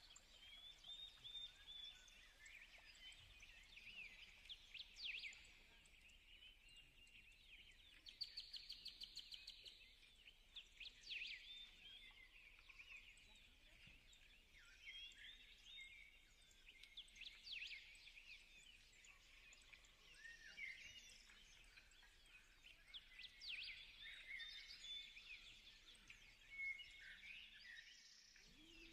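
Faint chirping of small birds, many short calls overlapping, with a fast trill of about ten notes a second about a third of the way in.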